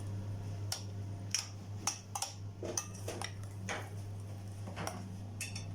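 Spoon clinking and tapping against a bowl, about nine light ticks spaced roughly half a second apart, over a steady low hum.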